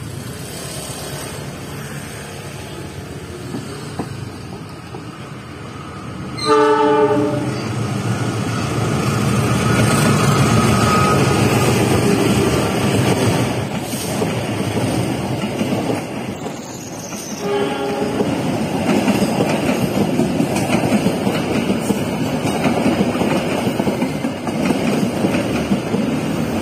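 Argo Parahyangan passenger train passing close by. Its diesel locomotive sounds the horn, a loud blast of about a second roughly six seconds in and a shorter one about two-thirds of the way through. The mild-steel coaches then run past with loud, steady wheel-on-rail rumble and clatter.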